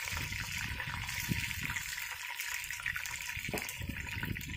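Battered fish deep-frying in hot oil in a camp oven: a steady sizzling hiss as the pieces finish browning.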